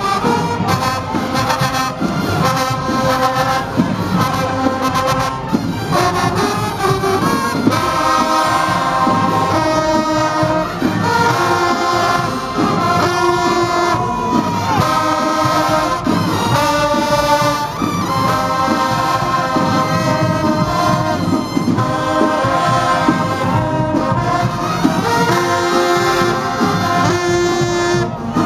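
A high school marching band's horn line of trombones and trumpets playing a tune in held, punchy notes over drum hits while marching.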